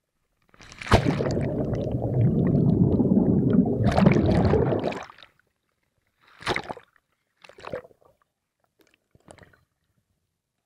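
A scuba diver entering the sea from a dive boat: a splash about a second in, then about four seconds of churning water and rushing bubbles heard underwater, stopping suddenly. After that come three short bursts of bubbling.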